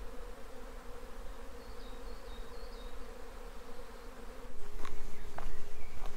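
Steady buzzing drone of a large colony of bees nesting high in a tree, making a real racket. About four and a half seconds in, a louder steady tone with a few sharp pings comes in over it.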